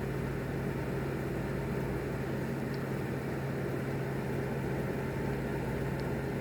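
Steady low hum over an even hiss, unchanging throughout, with no thunder.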